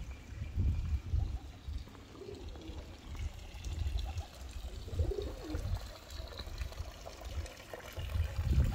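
Outdoor ambience: a few low bird calls, about two and five seconds in, over an uneven low rumble.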